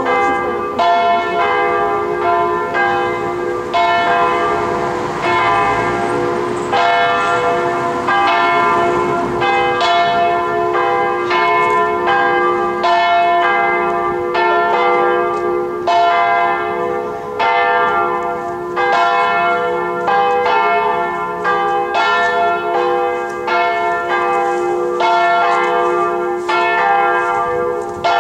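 Several church bells in the lantern of Marmorkirken, the Marble Church, ringing: a steady run of strikes at different pitches, about three every two seconds, over a lasting hum from the bells still ringing.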